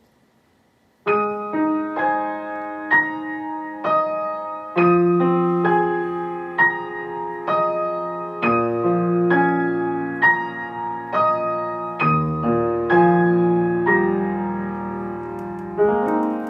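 Solo piano accompaniment to a choral song, beginning about a second in with evenly paced broken chords, the notes ringing on under the sustain.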